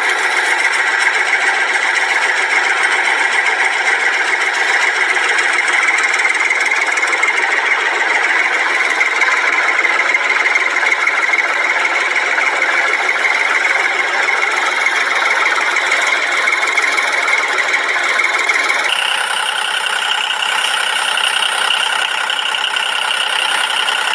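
A small motor running steadily with an engine-like drone, its pitch shifting about nineteen seconds in.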